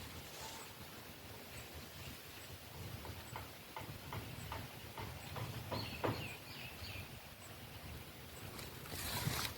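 Footsteps of a person walking outdoors, about two short steps a second through the middle, over a low rumble of wind and handling noise. A few short chirps about six seconds in, and a louder rush of noise near the end.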